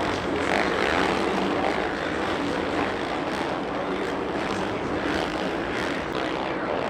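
Dirt bike engines running on a supercross track, a steady buzzing drone.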